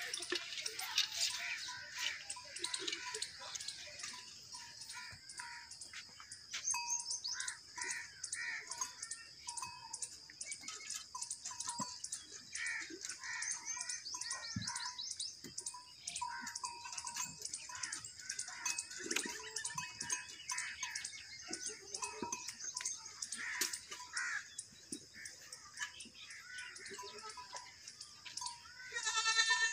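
Many birds chirping and calling in short, varied phrases over a steady high-pitched buzz.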